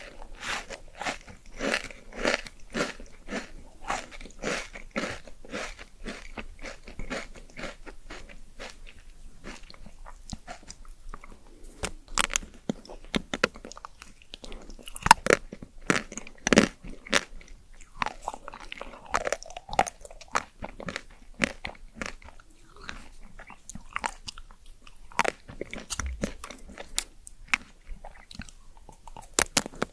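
Close-miked ASMR eating: steady chewing with many short wet clicks and crunches, and a few louder crisp snaps about halfway through.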